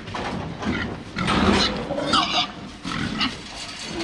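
Several large pigs grunting and squealing in irregular harsh calls while they are crowded and herded.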